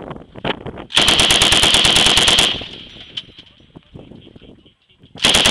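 Vehicle turret-mounted M240 machine gun firing long automatic bursts. A burst of about a second and a half starts about a second in, followed by a lull with scattered faint pops and echo. A second burst starts near the end.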